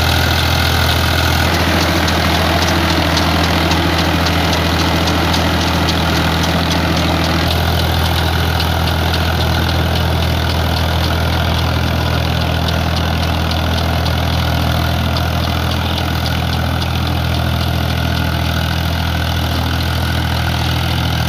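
Powertrac Euro 50 tractor's three-cylinder diesel engine running steadily while it pulls a rotavator through wet mud. The engine note shifts slightly about a second and a half in, and again about seven seconds in.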